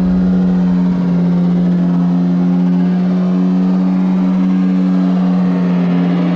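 Yamaha GP1800R SVHO jet ski's supercharged four-cylinder engine running at a steady low cruise, one constant hum with no revving.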